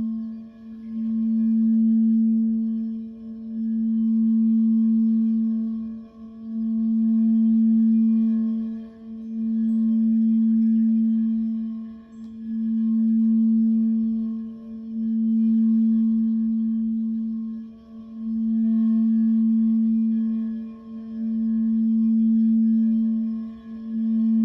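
Crystal singing bowl ringing with a steady low tone that swells and fades about every three seconds, with fainter higher tones sounding above it.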